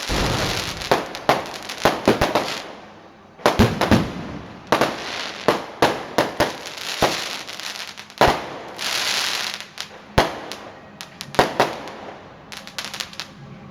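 Fireworks going off: a run of sharp bangs at irregular intervals, some in quick clusters, with crackling hiss between them, thinning out near the end.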